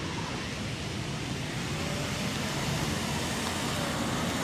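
A car rolling slowly toward the listener on a damp road in light rain: a steady rush of road and engine noise that grows gradually louder.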